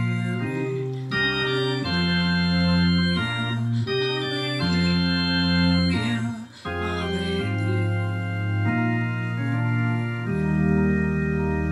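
Slow hymn chords in an organ sound played on a Yamaha CP40 Stage digital keyboard, each chord held for a second or two, with a brief break about six and a half seconds in.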